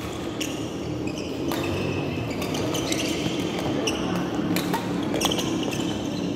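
Badminton play: several sharp racket strikes on a shuttlecock and sneakers squeaking on the court floor, over a low murmur of voices.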